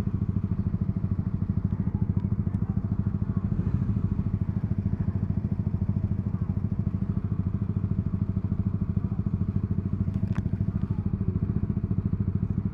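Yamaha R125's single-cylinder four-stroke engine running steadily with an even pulsing beat.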